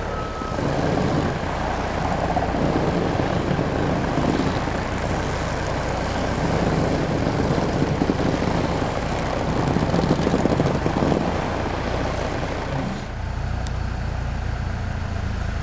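Truck engine running, a steady low hum with a rougher noise over it that swells and eases and drops back about thirteen seconds in.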